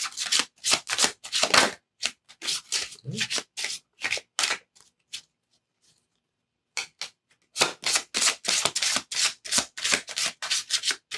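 A deck of tarot cards being shuffled by hand: quick runs of dry card slaps. They stop for about a second and a half past the middle, then start again.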